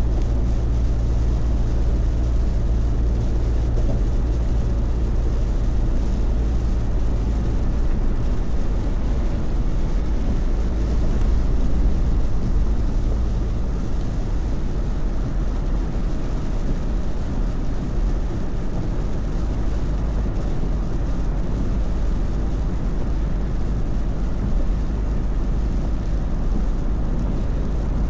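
Car driving on a rain-soaked expressway, heard from inside the cabin: a steady low rumble of road and tyre noise with rain on the car. The low rumble eases slightly about halfway through.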